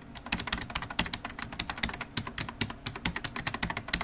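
Computer keyboard typing: a rapid, uneven run of key clicks, about ten a second.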